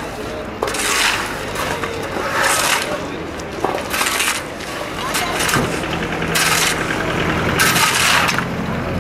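Metal shovels and picks scraping and striking gravel and broken pavement in repeated strokes, with sharp clinks of metal on stone. A motor's low steady hum comes in a little past halfway.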